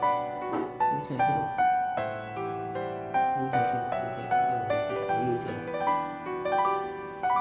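Background music: a soft piano melody, notes struck a couple of times a second, each ringing on and fading.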